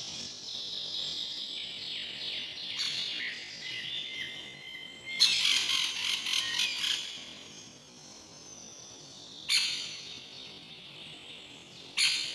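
Songbirds chirping in a forest: a chorus of high chirps and short whistles. About five seconds in comes a loud rapid run of notes lasting under two seconds, and later two sharp single calls.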